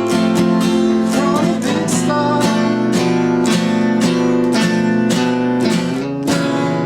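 Acoustic guitar strumming chords in a steady rhythm, with a last chord struck near the end and left ringing.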